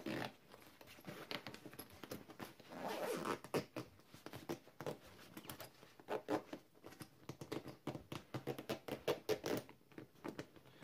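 Zipper on a fully packed Tigernu T-B3143 backpack being pulled closed in several short runs of fine rapid clicking, with brief pauses between pulls.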